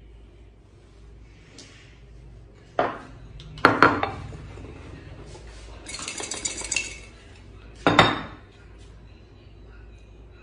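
Xóc đĩa set of a ceramic bowl over a plate holding four counters: clinks as the bowl is fitted over the plate about three and four seconds in, then the counters rattling inside as bowl and plate are shaken together for about a second, then a loud sharp clack as the covered dish is set down on the table.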